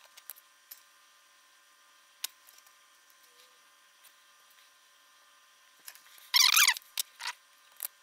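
Small metal parts and a pin-header adapter being handled at a workbench: a few faint clicks, then a brief squeaky scrape about six seconds in, followed by two or three short squeaks.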